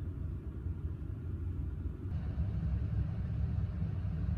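A low, steady rumble with no distinct events. It grows slightly louder about two seconds in.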